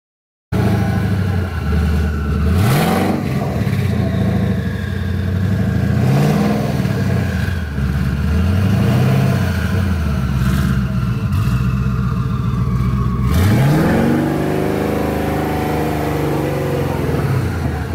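Twin-turbo Coyote 5.0 V8 of a 2019 Ford Mustang GT running and being revved four times, each rev climbing quickly and falling back to idle. The last rev, about two-thirds of the way through, is the longest.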